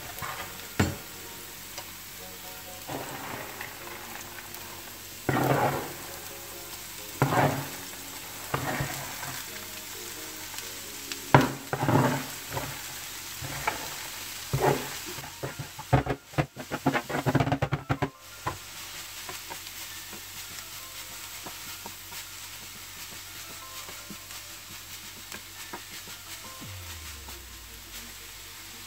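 Onion and chillies sizzling in hot oil in a frying pan. Through the middle, a wooden spatula scrapes and knocks against the board and pan as chopped cheera greens are tipped in and stirred, leaving a quieter steady sizzle under the greens.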